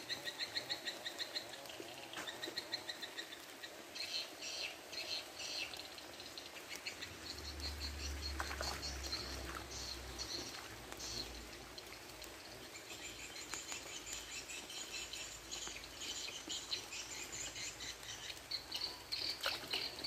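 Trains of rapid, high-pitched chirping calls from small animals, repeating on and off over the steady hiss of rain falling on a pond, with a brief low rumble about halfway through.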